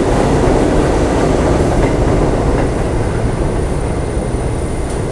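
New York City subway train running past the platform: a loud, steady rumble and rattle of the cars on the track, with a faint thin high whine over it.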